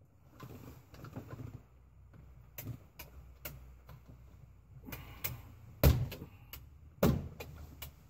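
Plastic clicks and knocks as a rocker switch is worked into a UTV's plastic dash panel, with two loud sharp snaps about six and seven seconds in.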